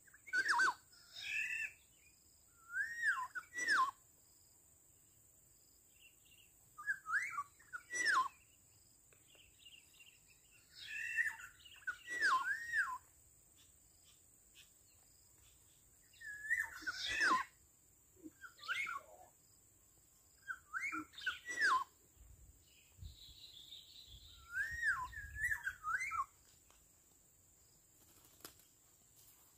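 Black-naped oriole (kepodang) calls: short, liquid, fluting whistled phrases, each opening with a sharp note, repeated about every three to four seconds.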